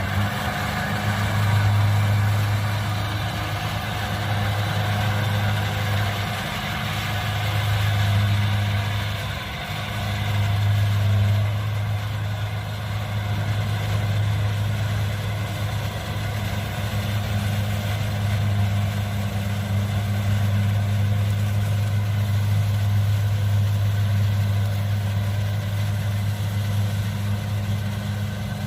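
Kubota DC70 combine harvester running steadily, its diesel engine holding a constant pitch over the whir of the machine.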